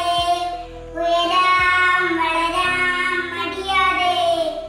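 A young girl singing solo, in phrases of long held notes that bend in pitch, with a short breath break about a second in and another near the end.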